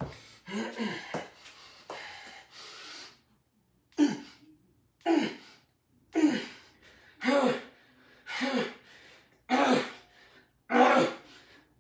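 A man's sharp, voiced exhalations, one per push-up rep, about one a second, from the effort of deep push-ups on handled push-up bars. Seven come from about four seconds in, after a few lighter breaths at the start.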